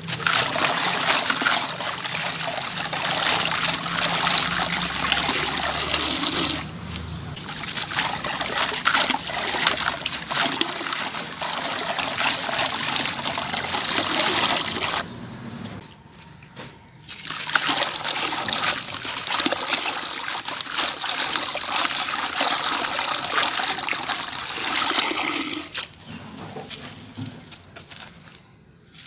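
Soaked sand-cement chunk crumbling between the hands into a bucket of water: gritty crackling with grit and pieces trickling and splashing into the water. It pauses briefly a little after halfway and again near the end.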